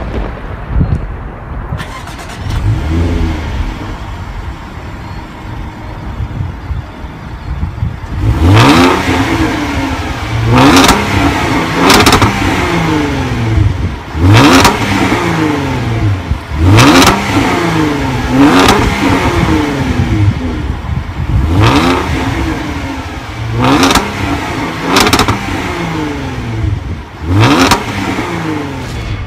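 The 2015 Jaguar XJL's 3.0-litre supercharged V6 running, then revved repeatedly from about eight seconds in. It gives about ten blips a couple of seconds apart, each rising and falling in pitch.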